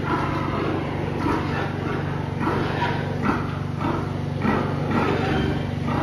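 Pigs grunting at irregular intervals over a steady low mechanical hum.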